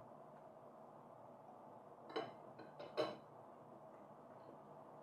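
A few faint clinks of a metal spoon and fork against a glass bowl, bunched together about two to three seconds in, over quiet room tone.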